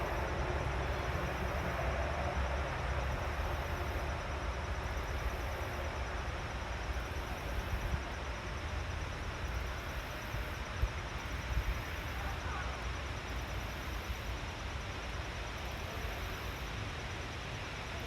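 Steady outdoor forest ambience: a continuous rushing noise with a low rumble underneath, and a faint short call about twelve seconds in.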